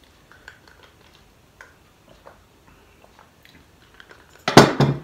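Faint scattered small ticks of eating and handling, then near the end one loud, sudden knock lasting about half a second, fitting a heavy glass beer mug being set down on a wooden table.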